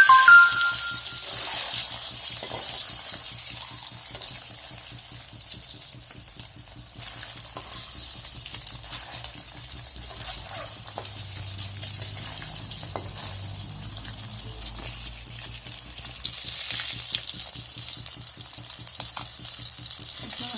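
Boiled eggs sizzling as they fry in hot mustard oil in a kadai, with a ringing metal clink of a utensil against the pan at the start and scattered small clicks of stirring after it.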